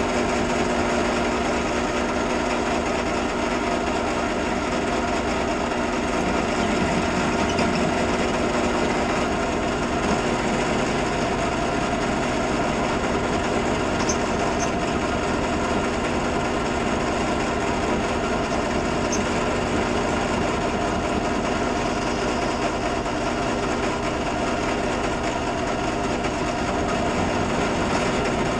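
Drill press running steadily, a motor hum with many overtones, while drilling pin holes through stabilized pinecone handle scales.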